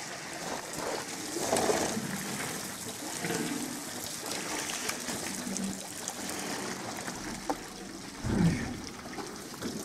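Water trickling and splashing as African bush elephants drink at close range, water spilling from their trunks back into the waterhole. A brief low rumble about eight seconds in.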